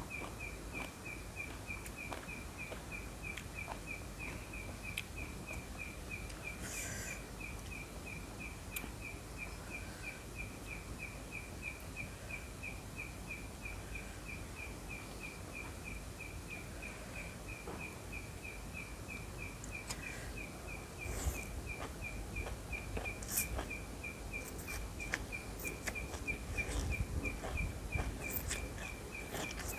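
An insect chirping steadily at one high pitch, about three or four even pulses a second, over low background noise. A few short clicks and crunches come in the second half.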